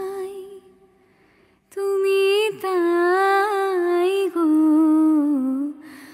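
Background song: a woman's voice singing slow, long held notes with wavering ornaments and little or no accompaniment, with a short break about a second in.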